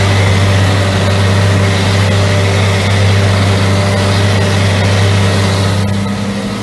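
Tractor engine running steadily at working speed while a side-mounted mower cuts grass, heard from the driver's seat; the drone eases a little near the end.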